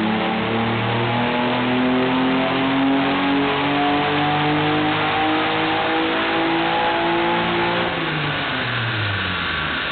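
1993 Mitsubishi 3000GT VR-4's twin-turbo 3.0-litre V6, fitted with GZP 16T turbos, on a full-load chassis dyno pull. The revs climb steadily for about eight seconds, then fall away sharply as the throttle is lifted near the end.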